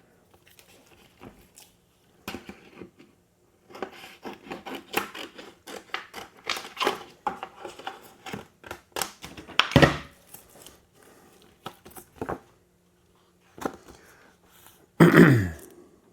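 Vinyl wrap sheet being handled and cut: a run of crinkling, scraping and snipping sounds with one louder snap midway. Near the end comes a brief falling voice-like hum, the loudest sound.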